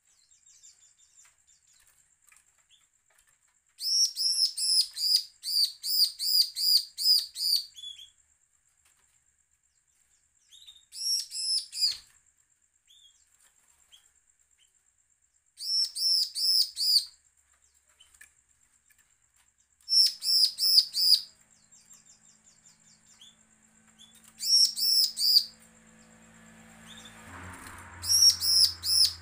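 Bar-winged prinia (ciblek) singing its threatening song: six phrases of rapid, high, ringing notes, each note a quick up-and-down sweep, repeated about three times a second, with pauses of a few seconds between phrases. Near the end a soft rustle of wings as the bird moves about the cage.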